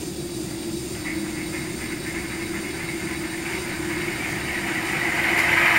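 Sound decoder in an HO-scale Athearn Genesis GP15-1 model locomotive playing its simulated diesel start-up through the model's small speaker: a steady hum under a hissing engine sound that builds and gets louder toward the end.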